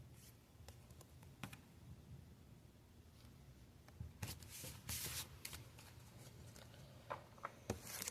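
Faint handling of Pokémon trading cards: a few light taps, then cards sliding against each other for about a second and a half, starting about four seconds in, and a few more soft clicks near the end.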